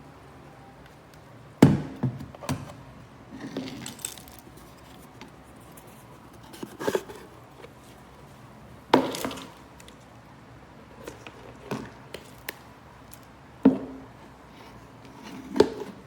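Irregular knocks and thuds of objects being handled and set down, about eight separate impacts a second or more apart, the sharpest about two seconds in and near the end.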